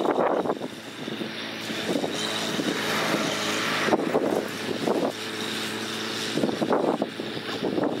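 Small Komatsu crawler bulldozer's diesel engine running as the blade pushes a pile of dirt. The engine note is steady for a few seconds at a time, broken by rougher, noisier stretches about a second in, around four seconds in and near the end.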